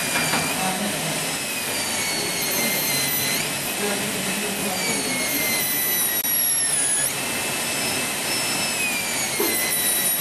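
Air-turbine high-speed dental handpiece cutting a typodont tooth for a bridge abutment preparation: a high-pitched whine over a steady hiss, the pitch slowly sagging and springing back up a few times as the bur works the tooth.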